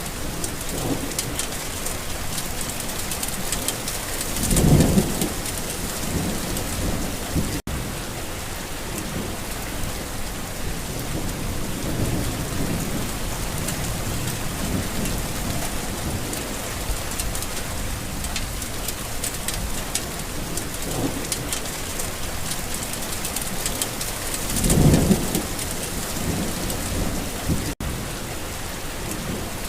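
Steady heavy rain pattering on a garden, with two low rolls of thunder, about five seconds in and again near the end. The sound cuts out for a split second twice.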